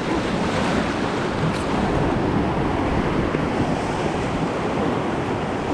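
Steady rush of the Salmon River in high flow around the raft, with some wind on the microphone.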